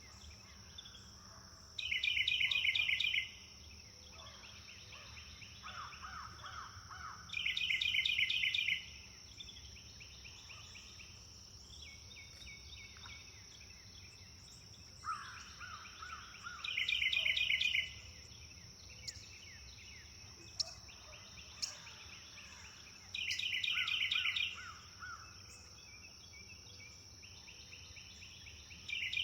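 Wild songbirds singing: one bird repeats a loud, rapid trilled phrase about every five to six seconds, with softer, lower songs from other birds in between. A steady high-pitched tone runs underneath throughout.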